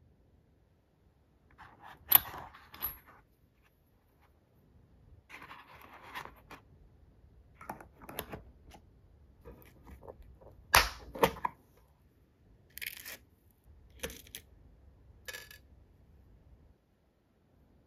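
Small metal parts of an engine model kit being handled in foam trays with needle-nose pliers: scattered sharp clicks and taps with short rustling scrapes. The two sharpest clicks come about 2 and 11 seconds in.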